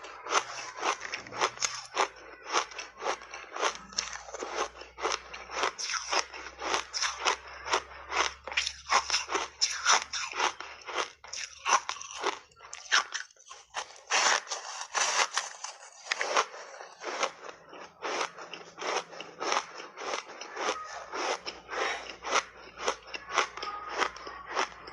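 Close-up crunching of ice coated in matcha milk powder being bitten and chewed. Sharp, loud crunches come about two or three a second, with brief pauses between bites.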